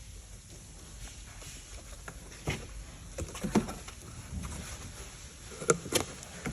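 Scattered knocks and clatter of packed parts being handled and set down while unpacking a shipping crate, with a few louder clunks in the second half.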